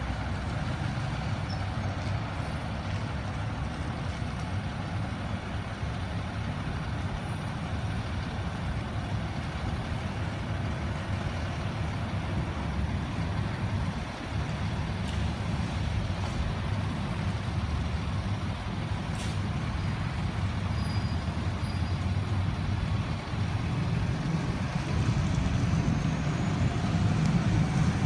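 A fire engine's diesel engine running as the pumper rolls slowly out of the station and along the road, with a steady low rumble that grows louder over the last few seconds as it pulls away.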